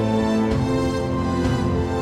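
Background music: sustained held chords with a soft, regular beat.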